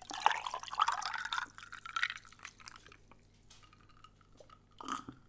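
Iced tea poured from a bottle into a drinking glass with ice for about two and a half seconds, splashing and filling. A short gulp follows near the end as the glass is drunk from.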